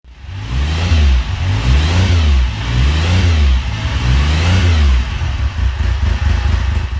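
Motorcycle engine revved in four blips a little over a second apart, then running more unevenly near the end before it cuts off suddenly.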